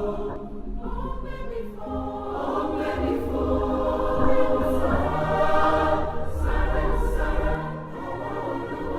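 Background music: a choir singing sustained, slowly changing chords over a low bass.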